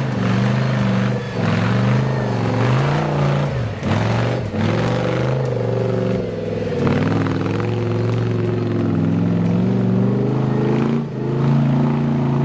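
A toy RC crawler car's electric motor and gears whining as it drives. The pitch rises and falls with the throttle, and there are a few short knocks.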